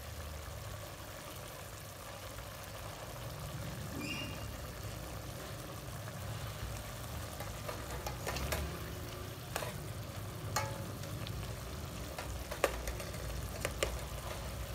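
Frog meat with curry paste sizzling in a stainless steel pot, stirred with a metal ladle that knocks and scrapes against the pot several times in the second half, over a steady low rumble.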